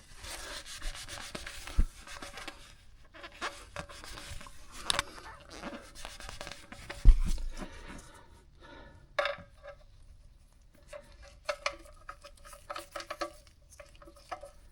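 A rag rubbing and wiping around the oil pan's drain opening, with small clicks and knocks of parts being handled and one sharper knock about seven seconds in.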